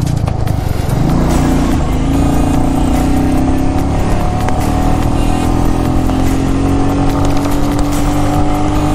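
Motorcycle engine running under way, its pitch climbing gradually as the bike accelerates, over steady rushing road and wind noise.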